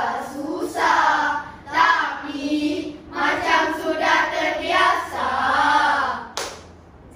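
A group of children's voices in unison, performing a rhythmic choral recitation in melodic, sung phrases with short breaks. There is a brief click about six seconds in, after which the voices fade out.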